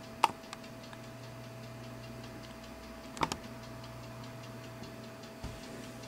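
Two sharp clicks from an iBook G3 laptop, about three seconds apart, with a soft knock near the end, over a faint steady hum.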